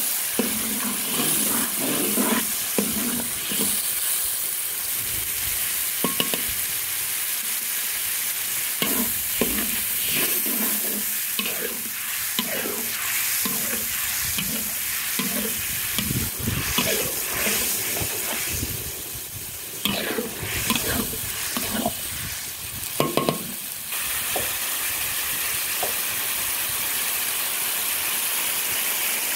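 Red chilli-paste sauce, just thinned with a little water, sizzling and bubbling in a metal wok. A metal spatula stirs and scrapes across the wok in irregular strokes, with a few sharper metallic scrapes. Near the end the stirring stops and only the steady sizzle is left.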